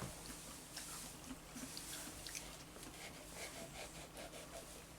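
Faint chewing of ripe melon, with scattered soft wet mouth clicks and smacks.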